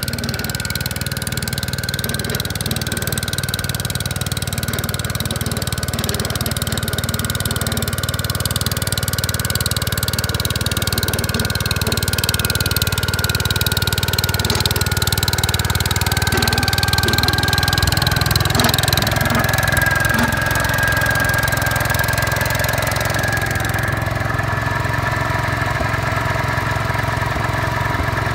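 Gravely 5665 walk-behind tractor engine running steadily, with a high whine above it that rises a little in pitch about two-thirds of the way through.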